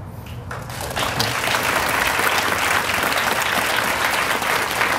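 An audience applauding, swelling up within the first second and then holding steady.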